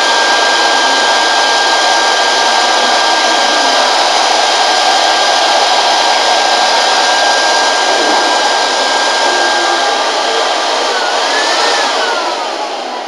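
Electric blower motor running at full speed with a rushing of air and a steady high whine. About eleven seconds in it is switched off, and the whine falls in pitch as the motor spins down.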